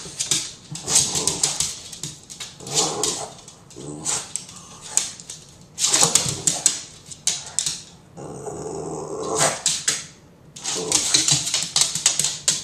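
A dog growling and grunting in play, with claws clicking and scrabbling fast on a hardwood floor as it prances about. One longer, steady growl comes about two-thirds of the way through.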